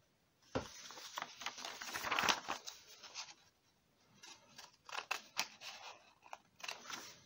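Scissors cutting through a sheet of A4 paper: a run of short snips, a brief pause just past the middle, then more snips.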